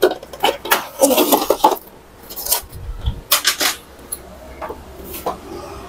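Plastic body of an Epson L120 inkjet printer being handled and turned around on a workbench: a run of knocks, clicks and scrapes in the first two seconds, more around the middle with a dull thump, then a few scattered clicks.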